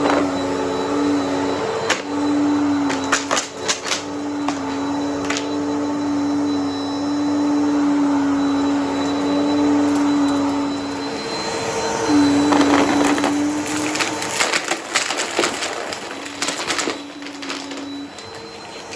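Vacuum cleaner running with a steady motor hum while it sucks up crunchy debris that clicks and rattles through it. The clicks are densest in the second half.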